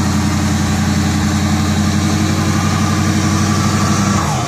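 Tow truck's engine idling with a steady low hum, which drops away just before the end.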